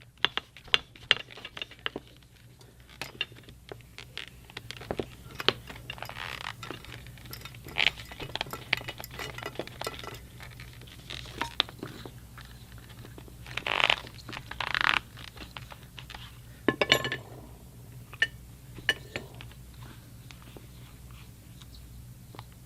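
Hands working a wet leather knife sheath on a workbench: scattered clicks and taps with a few short rubbing and scraping passes, the loudest a pair about two-thirds of the way through. A steady low hum sits underneath.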